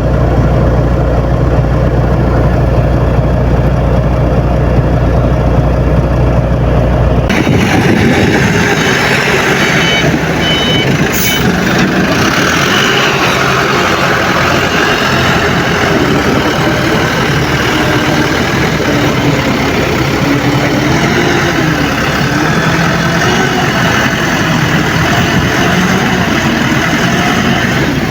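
Heavy truck engine running steadily. About seven seconds in, the sound changes abruptly from a deep low rumble to a brighter, noisier engine sound with a wavering pitch.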